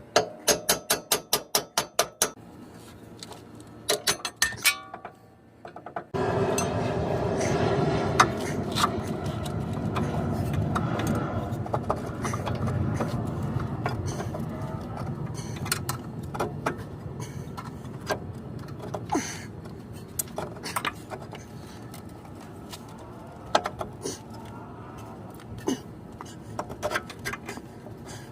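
Hand tools working on a car's front strut assembly. It opens with a rapid run of even clicks, like a ratchet, about five a second for two seconds. About six seconds in a louder, steady noise starts and slowly fades, with sharp metal clinks scattered through it.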